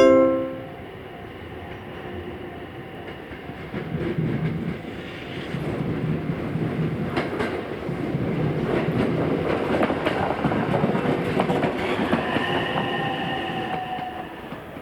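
A JR West 287 series electric multiple unit passing, its wheels clicking over the track, with a high whine that falls slightly near the end.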